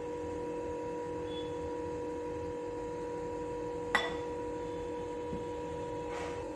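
A steady background hum, with one sharp tap about four seconds in as the silicone spatula knocks the glass bowl while batter is scraped from one bowl into another.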